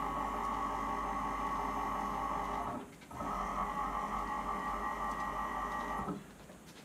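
Original stepper motors of a Wells Index 700 CNC knee mill driving the table along an axis: a steady, pitched buzz that stops briefly about three seconds in, starts again, and cuts off about six seconds in. The steppers are run from a CNC router's unipolar drivers at low voltage, about 35 V where about 80 V is needed, so the rapids are slow.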